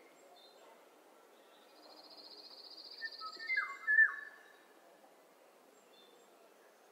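Songbirds singing in a morning birdsong recording: a high, rapid trill builds for about a second and a half, then a few louder whistled notes slide downward around three to four seconds in.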